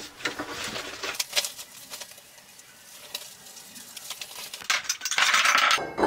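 Scrap steel tubing clinking and clattering on a steel welding table. A run of light metallic clinks comes in the first couple of seconds, then it goes quieter, and a denser scraping rattle follows near the end.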